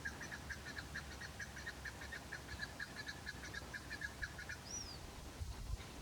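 Chukar partridge calling: a rapid run of clucking notes, about five a second, that fades and stops about four and a half seconds in. A single short high whistle follows.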